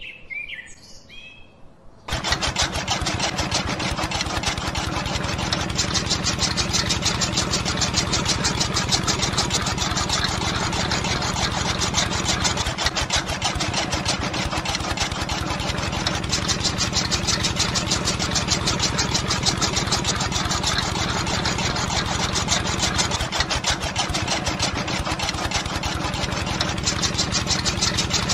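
Miniature model chaff cutter switched on about two seconds in, its small electric motor then running steadily with a fast, even rattle as the flywheel and blade spin and leafy stems are fed in.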